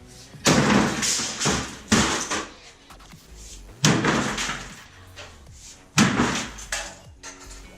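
A series of about six heavy slams, irregularly spaced, each dying away quickly. They are blows in the smashing of an old desktop computer.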